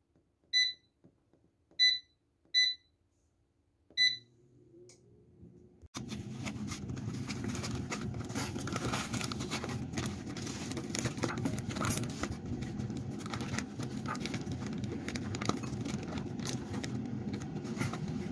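Air fryer touch panel beeping four times, a short beep with each button press, in the first four seconds. From about six seconds in, a steady rushing noise with frequent scattered clicks takes over and runs on.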